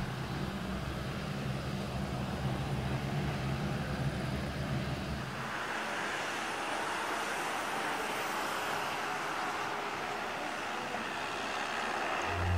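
CN-235's twin turboprop engines and propellers running as the aircraft taxis. A steady low hum gives way about five seconds in to a broader rushing noise.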